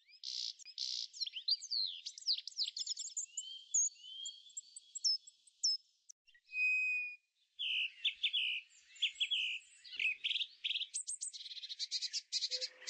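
Songbirds singing: a fast, continuous run of high chirps, trills and whistled slurs, several calls overlapping, with no low sound underneath.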